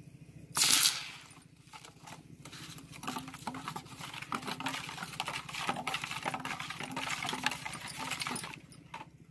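Besan batter being stirred and beaten in a steel bowl: a short loud clatter about half a second in, then a long run of rapid wet clicking and scraping against the metal that stops near the end.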